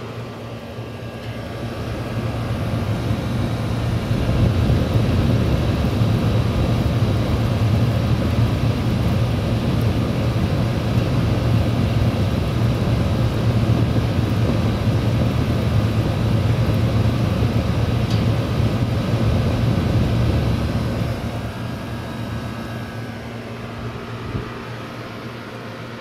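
Gibson Air Sweep window air conditioner running: a steady low hum with fan air noise, swelling louder a few seconds in and easing back again about three-quarters of the way through.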